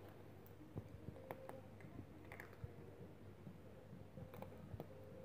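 Cats crunching dry kibble from a stainless steel bowl: faint, irregular crisp clicks of chewing.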